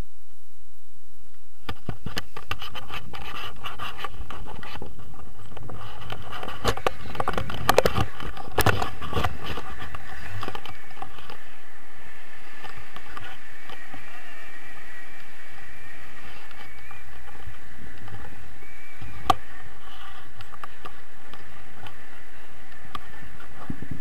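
Wind rushing over the camera microphone during a tandem paraglider launch. It starts about two seconds in with many knocks and scrapes of handling and the takeoff, then settles into a steady rush of air in flight.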